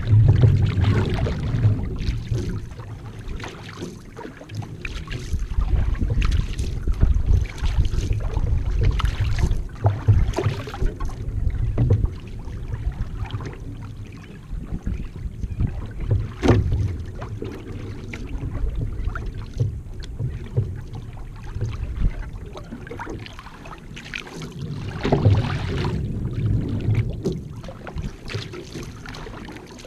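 Paddle strokes and water splashing and rushing along the hull of a one-person outrigger canoe, swelling and easing every few seconds, with wind rumbling on the microphone.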